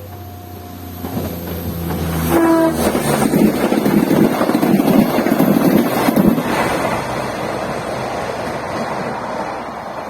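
A train passing close by at speed, its rush of wheels and body noise building, peaking for a few seconds and fading away, with a short horn blast about two seconds in.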